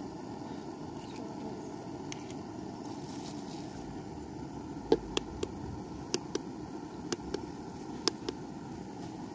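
Sharp taps of a hen's egg being knocked against a metal pot to crack its shell, about nine clicks mostly in close pairs, starting about five seconds in. A steady outdoor background noise underlies them.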